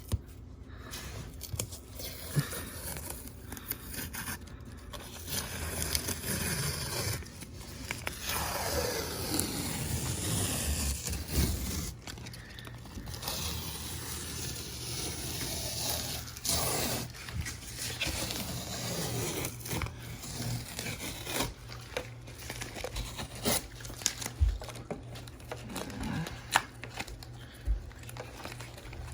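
Masking tape being slowly peeled off a freshly painted surface: irregular tearing and scraping, with the pulled-off tape crinkling and a few short falling squeaks.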